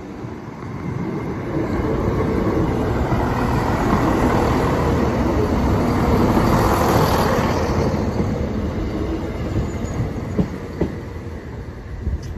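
Class 170 Turbostar diesel multiple unit passing slowly over a level crossing: diesel engine running and wheels rolling on the rails. It grows louder to a peak about six to seven seconds in, then fades as it moves away, with a few clicks near the end.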